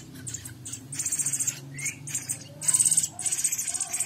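Young sabiá thrush chicks calling: about three short bouts of rapid, very high-pitched notes, with a small rising chirp and a few faint lower whistles between them.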